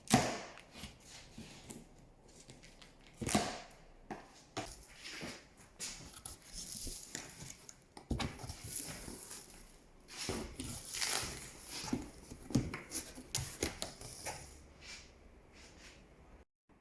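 Cardboard packaging being handled and opened, with irregular rustling, scraping and clicks and a sharp knock right at the start.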